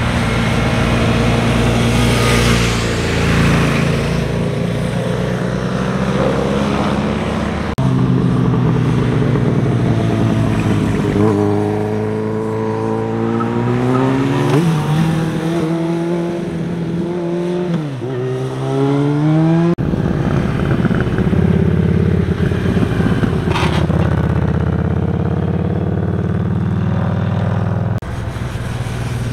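Motorcycle engines passing through a tight hairpin bend, one machine after another. Engine pitch rises and drops sharply with gear changes, and the sound changes abruptly about 8, 20 and 28 seconds in.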